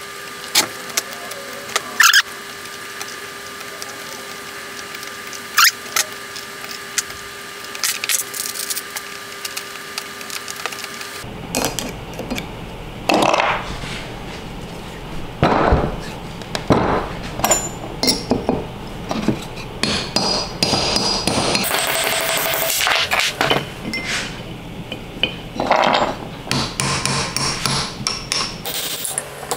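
Hand tools working on a cast-iron Charles Parker bench vise during disassembly. For the first eleven seconds there are a few sharp metal clicks over a faint steady hum. After that comes a busy run of metal knocks, taps and clinks, with hammer blows on the vise near the end.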